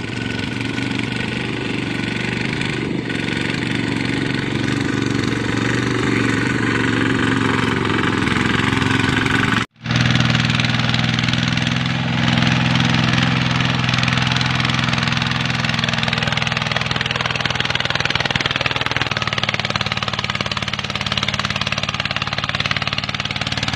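Small farm tractor engines running under load, with a sudden cut about ten seconds in. After the cut, a two-wheel tractor hauling a trailer heaped with soil runs at a steady, even pitch.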